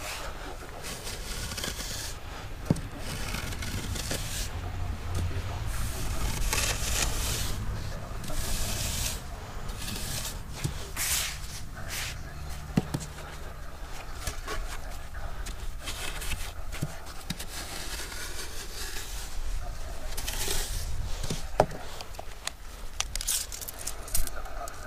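A short wooden board scraping over damp sand in repeated strokes, with gloved hands rubbing and pressing the sand flat: a sand base being levelled by hand.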